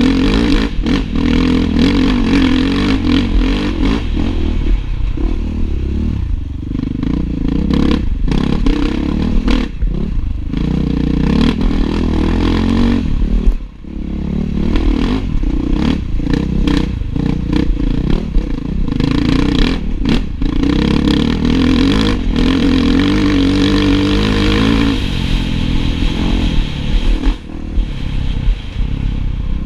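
Enduro dirt bike engine revving up and down hard under the rider's throttle over rough ground, with clattering and knocks of the bike over the terrain. A sharp knock comes about halfway, and the engine sound drops briefly right after it.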